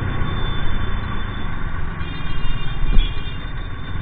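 Riding noise from a TVS Ntorq 125 scooter slowing down in traffic: a steady low rumble of its single-cylinder engine, the air rushing past and the traffic around it. A brief high-pitched ringing tone sounds about halfway through.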